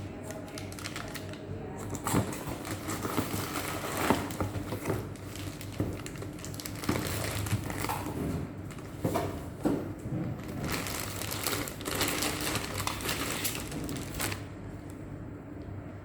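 Plastic packaging rustling and crinkling as parts are handled and packed away, with irregular clicks and light knocks; it dies down shortly before the end.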